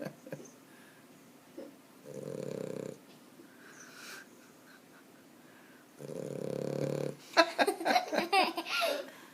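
A sleeping dog snoring, with two long, low snores of about a second each, the first about two seconds in and the second about six seconds in. Just after the second snore comes a louder burst of human laughter.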